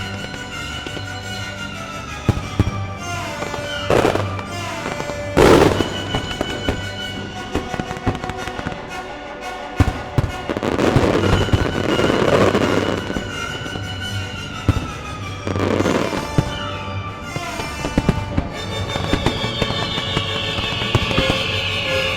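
Fireworks shells bursting over the show's music: loud bangs about four, five and a half and sixteen seconds in, and a denser run of bursts in the middle, with a tone falling in pitch near the end.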